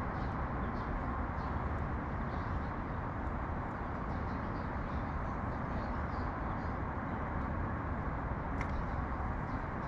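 Steady urban traffic rumble with faint, scattered small-bird chirps over it, one a little clearer near the end.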